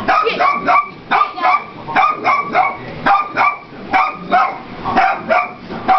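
Dog barking rapidly and repeatedly, about two barks a second, scared of a vacuum cleaner.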